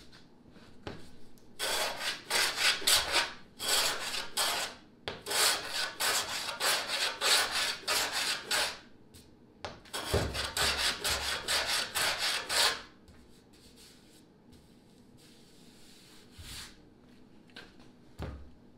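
Hand plane shaving the bevelled scarf edge of a plywood sheet in quick back-and-forth strokes, about two or three a second. There is a short pause around the ninth second, then a second run of strokes that stops a few seconds later.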